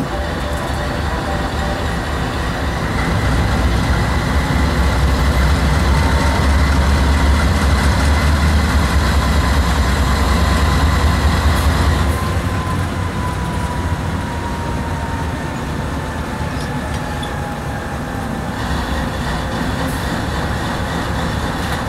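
Diesel locomotives running under load during yard switching: a heavy low engine rumble that builds over a few seconds, then eases about halfway through, while a thin whine slowly falls in pitch.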